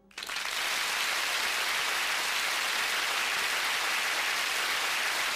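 Audience applauding after the song ends, coming in suddenly and holding steady as a dense clatter of hand claps.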